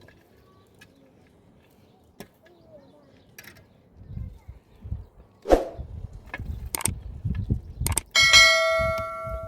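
Knocking and handling sounds, then a metal object struck once near the end, ringing with a clear bell-like tone that fades slowly.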